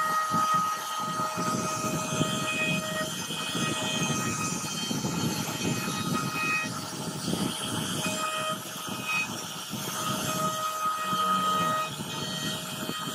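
CNC router spindle carving a relief into solid wood: the cutter grinds through the wood while a whine breaks off and comes back every second or two as the machine moves along the cut.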